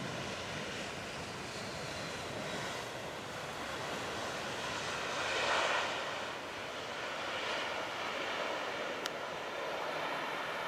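Jet engines of an Airbus A320-family airliner on the runway: a steady rushing noise that swells about five seconds in and then eases off, with one brief click near the end.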